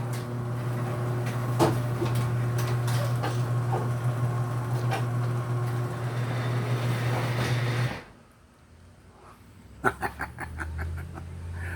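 Stanley garage door opener's motor running with a steady hum as it drives the door, stopping abruptly about eight seconds in. A few sharp clicks follow near the end.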